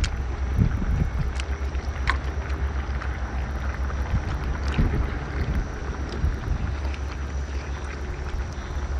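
Wind buffeting the microphone outdoors: a steady, gusty low rumble. A few light clicks come as lobster shell is handled.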